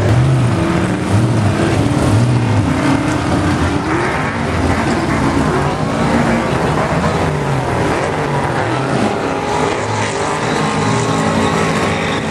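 Car engine revving hard in repeated blips, its pitch rising and falling as the car drives past.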